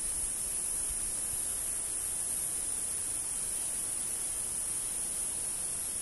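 Steady high-pitched hiss with no distinct calls or footsteps standing out.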